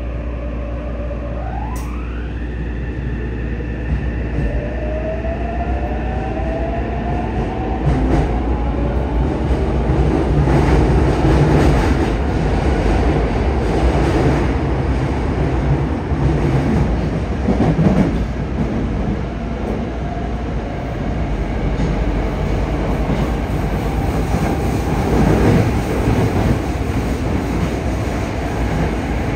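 A Yokohama Municipal Subway 3000S-series train pulling away and accelerating, heard from inside the car. Its Mitsubishi IGBT-VVVF traction inverter whines in a tone that climbs in pitch, first steeply about two seconds in and then in a slower upward glide. The wheel and running rumble grows louder as the train picks up speed.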